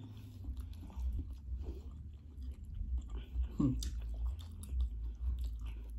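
Close-up mouth sounds of people eating by hand: chewing, with many short smacks and clicks, over a low steady hum. A brief falling vocal hum comes about three and a half seconds in.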